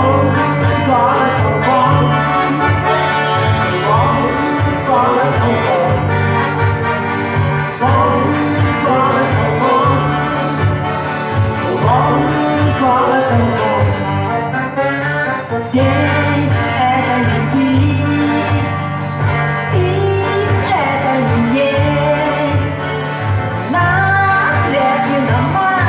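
A song playing: a singing voice over instrumental accompaniment with a steady bass line.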